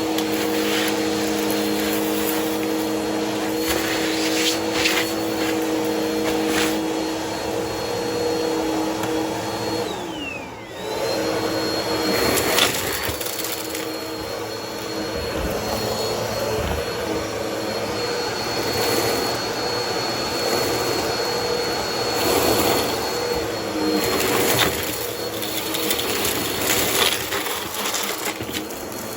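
Vacuum cleaner running on carpet with a steady motor whine, while crunchy debris crackles and clicks as it is sucked up. About ten seconds in, the motor pitch drops away and then comes straight back up.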